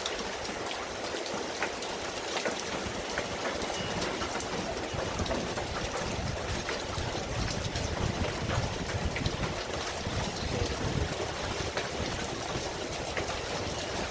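Steady rain falling, with many individual drops ticking sharply against the hiss. A low rumble underneath grows stronger after the first few seconds.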